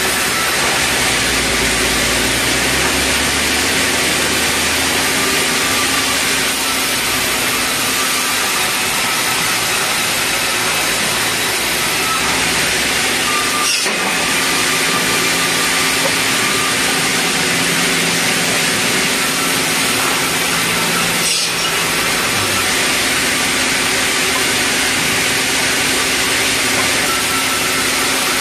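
Sawmill band saw running and cutting red meranti timber: a loud, steady noise of blade and drive. It is broken by a short knock about halfway through and another about three quarters of the way in.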